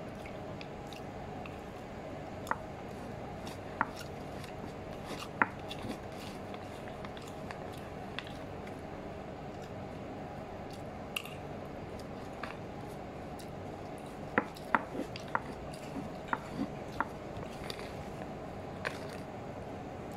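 Metal spoon and fork tapping and scraping while eating noodles out of a paper wrapper: scattered sharp clicks, with a quick run of them about fourteen to seventeen seconds in, over a steady room hum.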